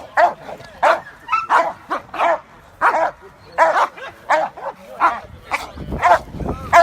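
Working dogs barking over and over, a bark roughly every half second to second, with an occasional whine between barks; a low rumble joins in about five seconds in.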